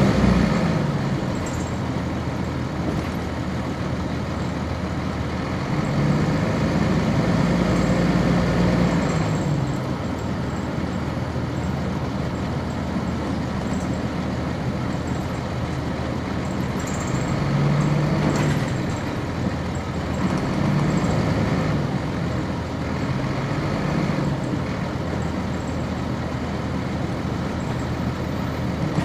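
Inside a 1999 NovaBus RTS transit bus: its Cummins ISC inline-six diesel, driving a ZF Ecomat six-speed automatic, drones steadily in traffic. The engine note swells and climbs about a quarter of the way in and again past the middle, as the bus pulls away, then drops back.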